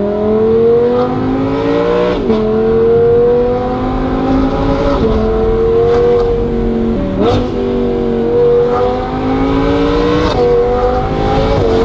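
Audi R8 GT's 5.2-litre V10, running through an aftermarket titanium exhaust with equal-length headers, heard from inside the cabin while accelerating at moderate revs. The smooth engine note climbs steadily and drops briefly four times as the gearbox shifts up, with a short crack at each shift.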